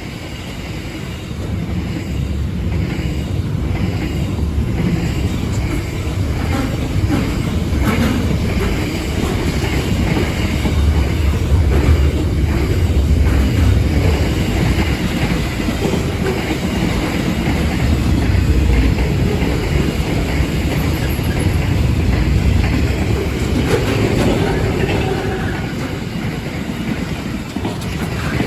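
Long freight train rolling past at speed: a loud, steady low rumble with the rapid clatter of wagon wheels over the rail joints.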